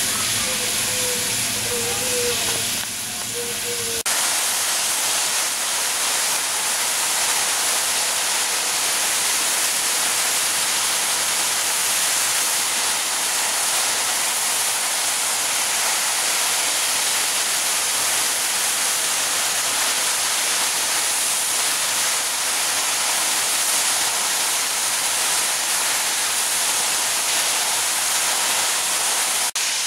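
The LMS Princess Royal class Pacific steam locomotive Princess Elizabeth is blowing off steam from its safety valves, making a loud steady hiss.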